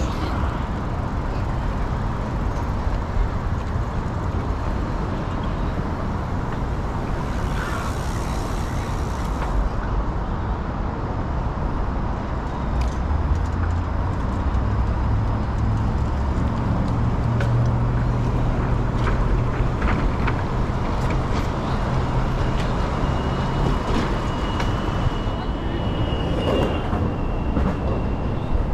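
Steady wind and rolling noise on a bicycle-mounted microphone with road traffic going by. A low rumble from a passing motor vehicle swells in the middle and fades.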